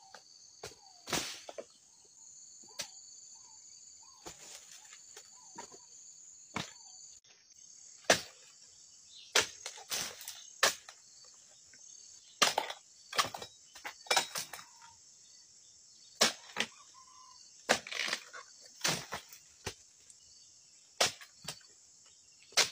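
A long pole cutter hacking at oil palm frond and bunch stalks, making a series of sharp, irregular cracks and knocks. Insects drone steadily and high-pitched underneath.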